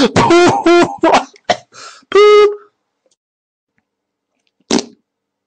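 A person's voice making quick wordless vocal sounds for the first two and a half seconds, ending in a short held note. Near the end there is a single brief sharp sound.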